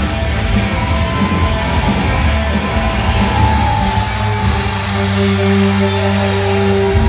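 Loud rock music with electric guitar, ending in a long held chord over the last couple of seconds.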